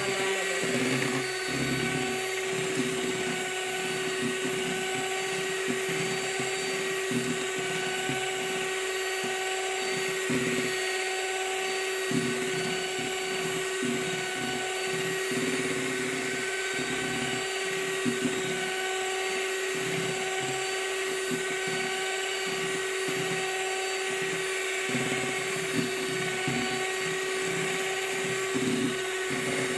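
Electric hand mixer running with a steady motor whine, its beaters whipping egg whites and sugar into meringue in a plastic bowl. The meringue is nearly at stiff peaks.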